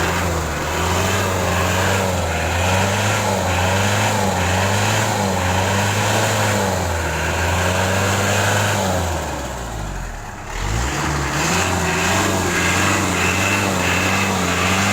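Vehicle engine running steadily at a constant speed. About two-thirds of the way through its pitch sags and it goes quieter for about a second, then it picks back up to the same steady running.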